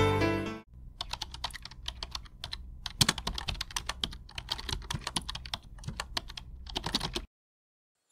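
Music ends in the first half-second. Then a keyboard-typing sound effect plays, rapid irregular key clicks for about six seconds in time with text being typed out on screen, cutting off suddenly near the end.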